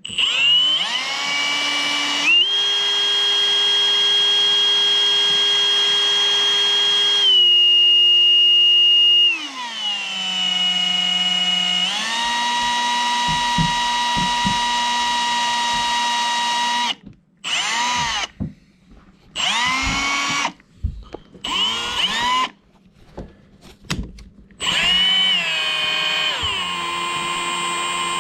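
Power drill motor whining at varying speed, its pitch stepping up and down as the trigger is eased. In the second half it is stopped and restarted in short bursts several times before running steadily again near the end.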